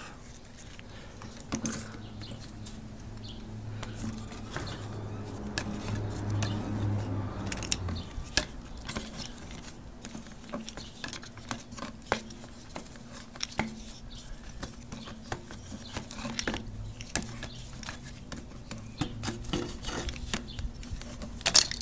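Scattered light metallic clicks, taps and rattles as a carburetor is unscrewed and worked loose from a Honda TRX300EX quad's engine by hand. A low steady hum runs under the first eight seconds or so, then stops.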